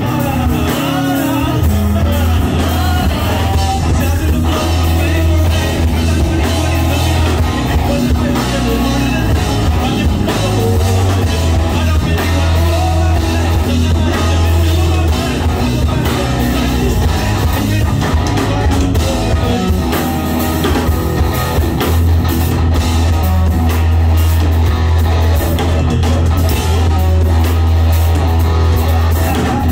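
Live rock band playing loud: electric guitar, bass guitar and drum kit, with a singer on a microphone, the bass heavy throughout.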